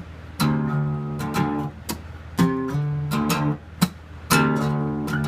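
Acoustic guitar strumming chords in an instrumental break of a folk song, each strum struck sharply and left to ring.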